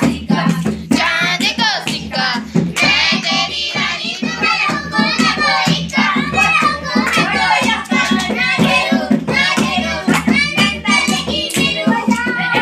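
Voices singing a song to a dholak beaten by hand in a steady, quick rhythm.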